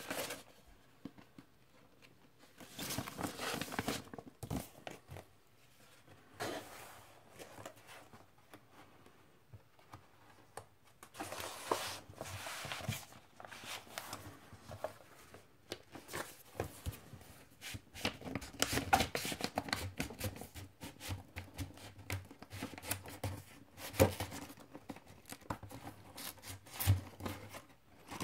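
Paper record sleeves and large printed photo pages being handled, slid and turned, rustling and crinkling in irregular bursts with a few sharp taps and clicks.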